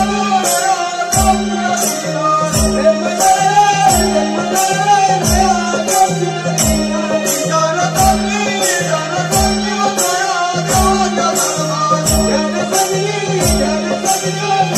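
Group singing of a Marathi naman song, accompanied by taal hand cymbals striking a steady beat about twice a second and a mridang drum giving deep strokes about once a second, over a held low tone.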